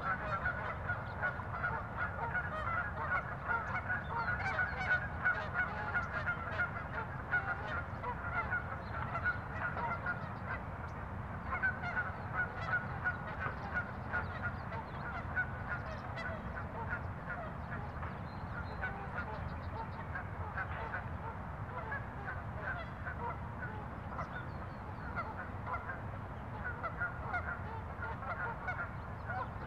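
A flock of birds calling without let-up, many short calls overlapping one another, over a steady low rumble.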